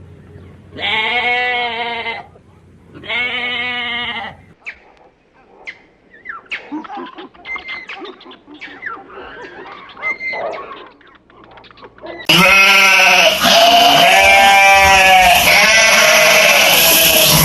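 Bleating farm animals: two long bleats in the first four seconds, then quieter scattered calls until about twelve seconds in, when a louder stretch of many overlapping bleats begins, as from a flock.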